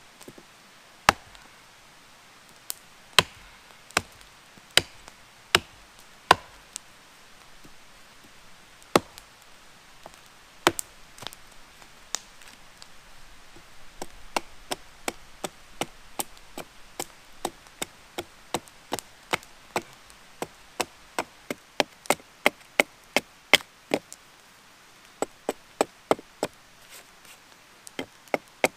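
Hatchet chopping into a fallen log, cutting a notch: a series of sharp single blows of steel biting into wood. The blows come a few seconds apart at first, pause, then settle into a steady rhythm of about two a second.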